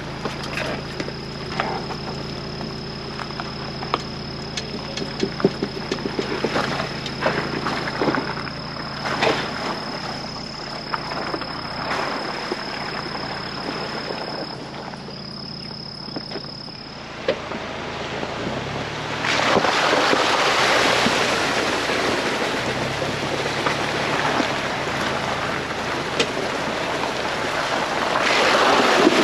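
4x4 driving slowly along a rough dirt trail: a steady engine hum under frequent clicks and knocks of the tyres and body over rocks. About two-thirds of the way in, a loud rushing noise rises over it.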